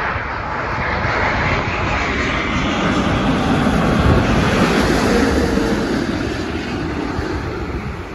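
Twin-engine jet airliner on final approach passing low overhead. Its engine roar builds to its loudest about four seconds in, then fades.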